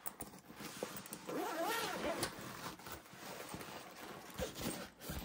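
The long zipper of a backpack's main compartment being pulled open: a steady rasp running for a couple of seconds. A short pitched sound that rises and falls rides over it about a second and a half in.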